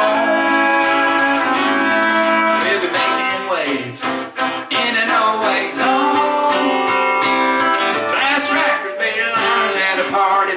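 Live country song with acoustic guitar strummed and a sustained melody line above it that bends up and down in pitch.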